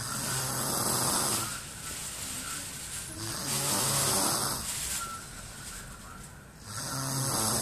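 Snoring in slow, regular breaths: three loud snores about three seconds apart, each a low rattling buzz with breathy hiss, with quieter breathing between.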